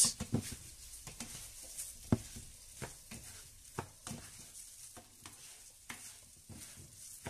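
Wooden and plastic spatulas stirring raw rice through fried pepper and garlic in a non-stick frying pan, with irregular scrapes and taps on the pan over a faint sizzle of the oil as the rice toasts before the broth goes in.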